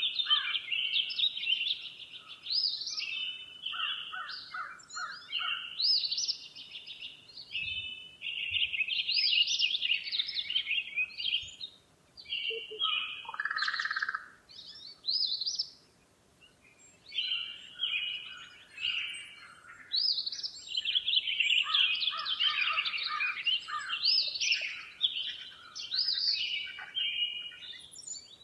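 Songbirds singing and chirping in quick, overlapping trills and twitters, with a couple of brief lulls partway through.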